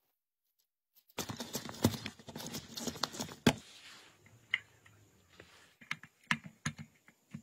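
Clicks, taps and rattles of small pistol parts being handled and fitted together: a dense run of clicks and scrapes starting about a second in, with one sharp click, then scattered single clicks as a wooden grip panel is set on the frame and screwed down.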